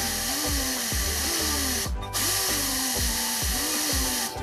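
Pneumatic angle grinder grinding down a steel differential bearing spacer to correct a loose pinion preload: a steady hiss that cuts out briefly about two seconds in and again just before the end. Background music with a beat plays underneath.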